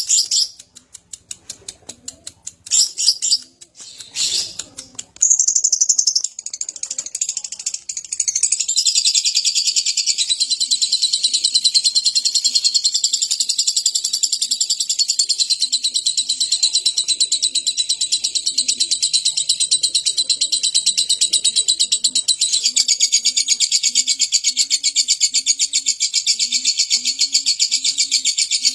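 Lovebird ngekek: a few separate high chirps, then about eight seconds in an unbroken run of very rapid, high chattering notes that keeps going without a break.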